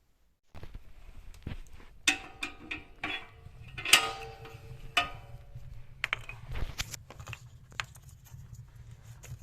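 Irregular metal clinks and knocks, several ringing briefly, the loudest about four seconds in, from metal tools being handled or tapped while the old chisel is worked on, over a low steady hum that starts about half a second in.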